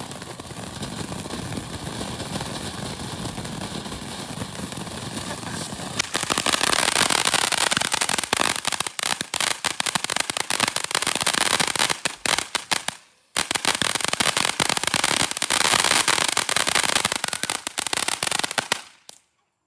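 Pokeball novelty ground firework burning: a steady hissing spray for about six seconds, then much louder dense crackling that breaks off briefly just after halfway, starts again, and stops suddenly near the end.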